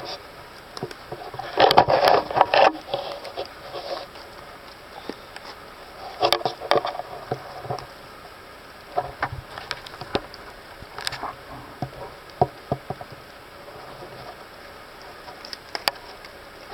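Irregular rustling and crackling of leaves and brush, loudest about two seconds in and again around six seconds in, with scattered single ticks after.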